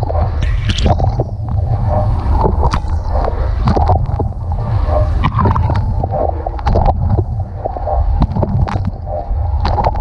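Dishwasher wash cycle heard from inside the tub: jets from the spray arms rain water over the dishes and racks in a continuous splashing wash. A steady low hum from the circulation pump runs underneath, and many sharp ticks come from water striking.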